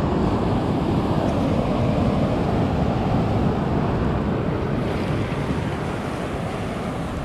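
Sea surf washing over rocks, a steady rushing of water, with wind on the microphone.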